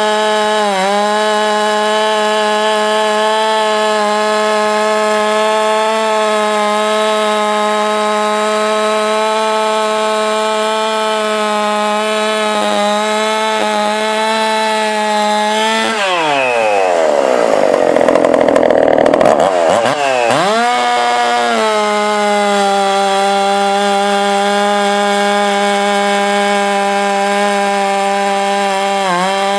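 Top-end-ported Husqvarna 372XP 71cc two-stroke chainsaw held at full throttle with a steady high-pitched scream. About sixteen seconds in, its pitch drops sharply and it grows louder and rougher for some five seconds as it is pulled down in a cut, then it climbs back to full revs.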